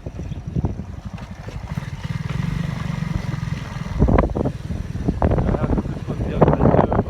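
A vehicle running with a steady low rumble, with a person's voice breaking in over it in the second half.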